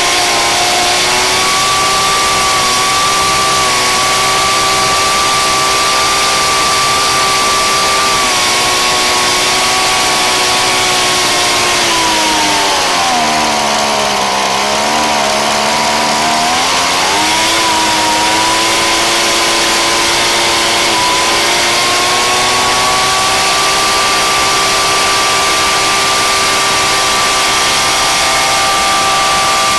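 Ryobi backpack blower's small gas engine running at a steady speed. About halfway through, the speed sags and wavers for a few seconds, then climbs back up and holds steady.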